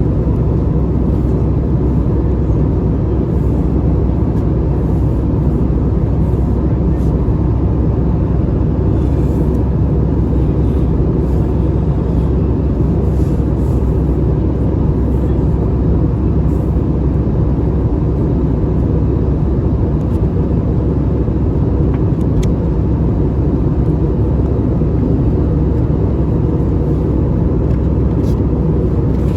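Steady cabin noise inside an Airbus A320: an even, low rumble of engines and airflow that does not change, with a faint steady tone above it.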